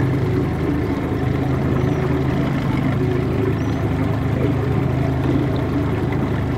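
Tiller-steered outboard motor running steadily at an even speed, pushing a small flat-bottomed boat under way.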